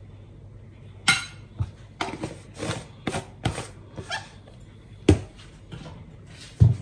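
A metal spoon scraping ginger paste out of a small glass jar and tapping against the jar and the clay tagine: a string of short clicks and scrapes, with the loudest knock near the end.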